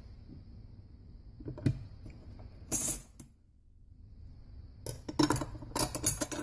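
Steel clutch plates of a 1955 Oldsmobile Hydra-Matic rear clutch clinking against one another and the steel drum as they are stacked in: one clink a couple of seconds in, a short rattle near the middle, and a quick run of clinks near the end.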